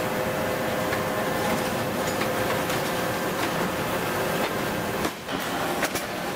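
Forging press line at work on a red-hot steel bar: a continuous mechanical rumble with a steady hum and scattered metallic clanks and clicks. It drops off briefly about five seconds in, then resumes.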